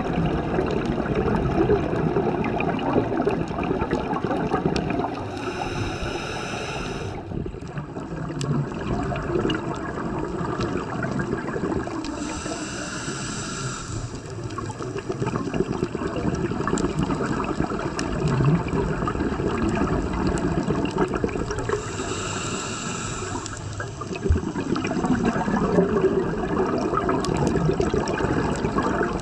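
Scuba regulator breathing underwater. Three inhalations, each a hiss of about two seconds, come between long exhalations of bubbling rush.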